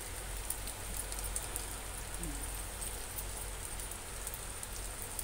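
Pasta and masala sauce sizzling in a steel pot over a gas flame: a steady crackling hiss with fine ticks.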